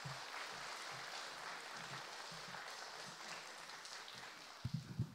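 Audience applauding steadily, dying away near the end, where a few low thumps follow.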